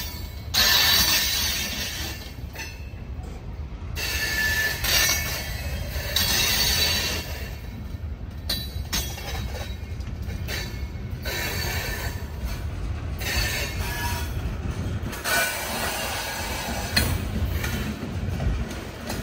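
Freight train of tank cars and then open hopper cars rolling past close by: a steady low rumble of wheels on the rails, with bursts of high-pitched wheel squeal that come and go every second or two.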